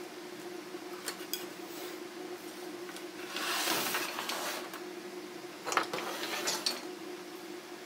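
Wood-carving chisels and gouges clicking and clinking as they are handled and picked up from a wooden desk, with a longer brushing swish about halfway through. A steady low hum runs underneath.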